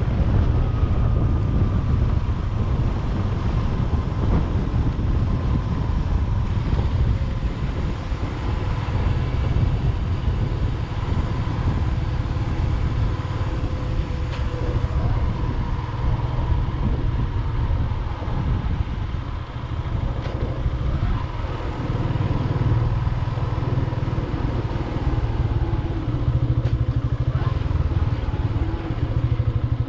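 Motorcycle running along a road at a steady pace: a continuous deep rumble with a faint steady whine above it.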